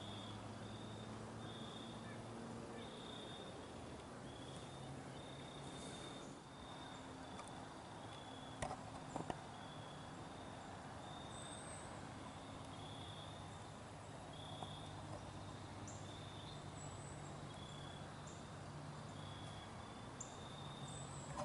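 An insect chirping faintly in short, high, evenly spaced pulses about once a second, over a faint steady low hum. Two sharp clicks come about nine seconds in.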